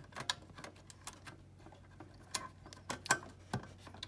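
Scattered light clicks and taps of wires and plastic parts being handled as the wiring is pressed into a plastic clip, with a few sharper clicks past the middle.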